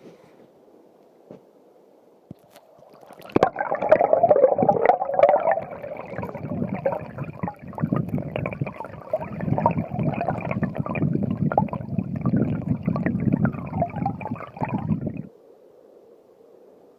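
Creek water gurgling and splashing close to the microphone, starting abruptly about three seconds in and cutting off just before the end.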